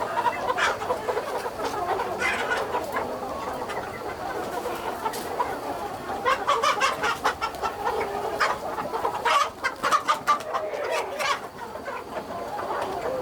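A large flock of native chickens clucking continuously, many birds at once. Sharp clicks or taps break in between about six and eleven seconds in.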